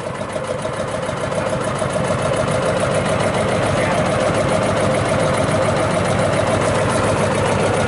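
A small boat engine running steadily, growing a little louder over the first few seconds and then holding level.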